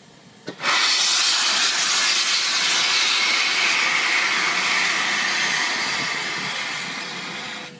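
Peppercorn A1 steam locomotive 60163 Tornado venting steam from low at the front: a loud steady hiss that starts suddenly about half a second in, just after a short knock, eases slightly, then cuts off abruptly near the end.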